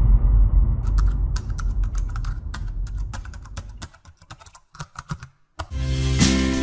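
Keyboard typing sound effect: a run of quick, irregular key clicks over the fading rumble of a deep boom. Music with a bass line comes in near the end.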